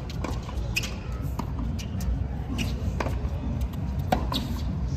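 Tennis stadium ambience: a low crowd murmur with some faint chatter, and short sharp knocks on the court at irregular intervals.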